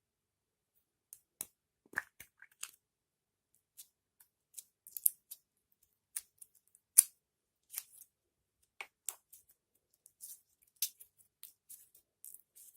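Slime being mixed and squished by hand, giving irregular sharp clicks and pops with silence between them.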